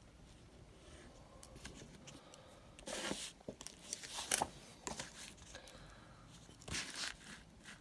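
Ballpoint pen (biro) and hand on drawing paper: short, scratchy pen strokes and rustles of the sheet, the loudest about three seconds in and again near the end.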